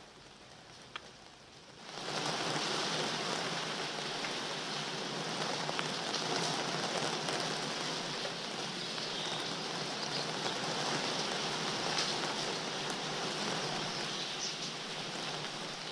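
A steady rush of rain that comes in suddenly about two seconds in, after a quieter start broken by a single click, with faint scattered ticks in it.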